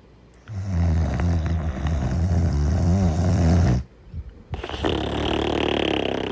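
A dog character snoring: a long, low snore lasting about three seconds, a short break, then a higher, breathier snore.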